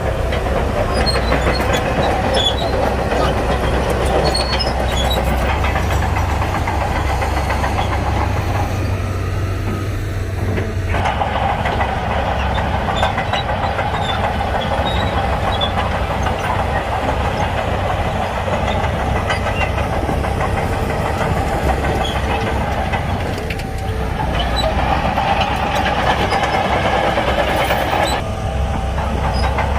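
Heavy diesel engine of a Shantui bulldozer running steadily under load, with its note changing several times as the machine works.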